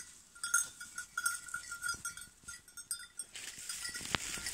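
Small bell on a woodcock-hunting dog's collar jingling in short, irregular strokes as the dog works through the cover. Near the end it gives way to a rustling of dry bracken and brush.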